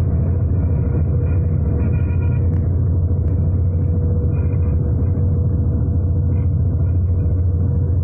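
New Holland combine harvester running steadily while cutting wheat, heard from inside its cab: a constant low engine and machinery drone with a faint steady whine above it.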